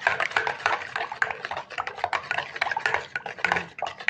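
A spoon stirring thick tomato-paste sauce in a stainless steel bowl: quick, irregular scraping and clinking against the metal without a break.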